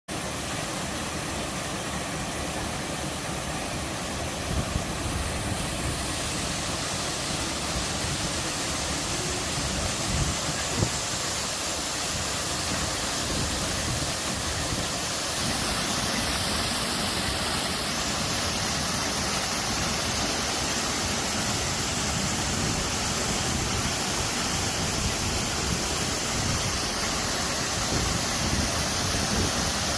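Waterfall cascading into a mountain stream, a steady, full rush of falling water. The rush grows brighter and hissier about 15 seconds in, with a couple of brief low knocks earlier on.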